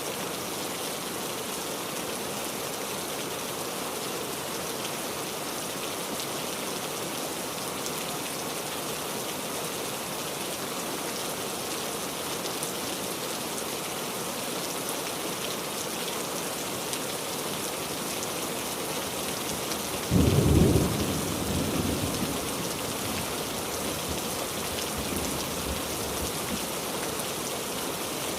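Steady rain falling, a continuous even hiss. About two-thirds of the way through, a sudden low crack of thunder breaks in and rumbles away over a couple of seconds.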